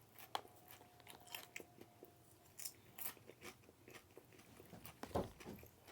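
Faint chewing close to the microphone, with small crunches and mouth clicks. One louder dull knock about five seconds in.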